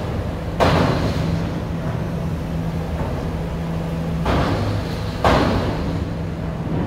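Steady low drone of a ferry's engines, with three sudden heavy thumps that each fade off over about a second: one about half a second in, another around four seconds in, and a third a second later.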